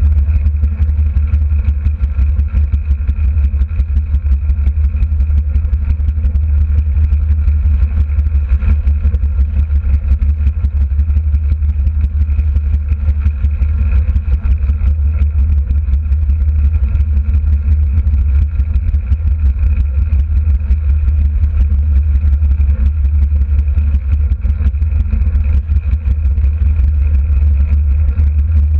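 Derny pacing motorbike's small engine running steadily at track speed, a constant drone with heavy wind rush on the microphone.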